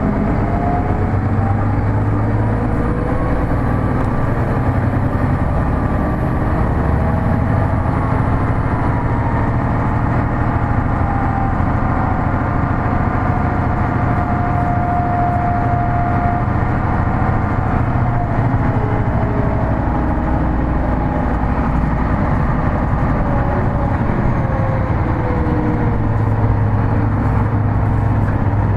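Hino Blue Ribbon City Hybrid diesel hybrid bus driving, heard from inside the cabin: a steady rumble and road noise. A whine rises in pitch over the first few seconds, holds steady in the middle, then falls away over the last ten seconds as the bus slows.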